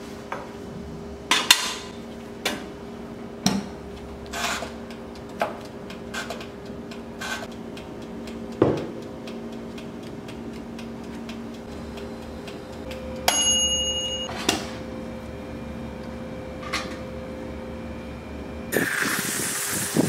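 Metal trays and racks of a small toaster oven knocking and clinking as it is handled, over a steady hum, with a short metallic ring about two-thirds of the way through. Near the end a rasping rub of sandpaper on steel starts.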